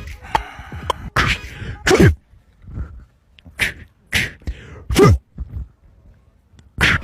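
A string of short comic sound effects played over a speaker: about half a dozen sudden noisy bursts spaced irregularly, several ending in a falling pitch.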